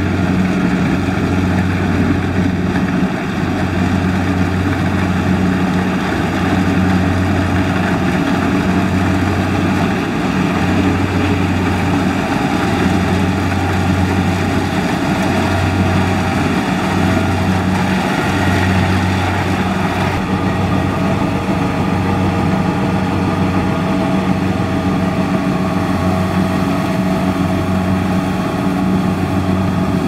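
Kubota DC70 Plus rice combine harvester's diesel engine running steadily while the machine cuts and threshes rice, a loud low drone that wavers every second or two.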